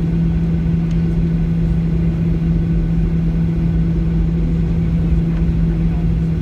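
Boeing 737 jet engines at low taxi power, heard from inside the passenger cabin: a steady, loud drone with a constant low hum, over the low rumble of the airliner rolling along the taxiway.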